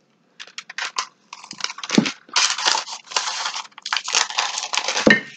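Wooden rolling pin rolling out salt dough on parchment paper: the paper crinkles and rustles in a string of uneven strokes, with a dull knock about two seconds in and another near the end.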